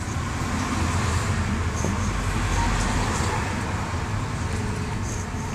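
Street traffic running steadily, with a vehicle going past that swells and fades in the first half.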